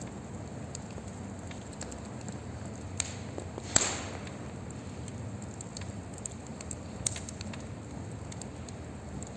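Wood fire in a fire pit crackling: a steady low rustle of flames with scattered sharp pops. The loudest pop comes a little under four seconds in, followed by a brief hiss.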